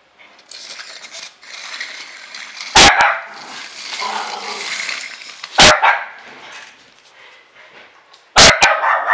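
A puppy barking sharply in alarm at a wind-up toy: single barks a few seconds apart, then a quick double bark near the end. A steady rattling hiss runs under the first two-thirds.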